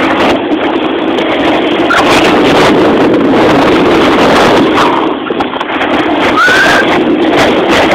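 Loud, steady rush of wind buffeting the camera microphone during a snowboard run, with a few brief rising squeals over it, the clearest about six and a half seconds in.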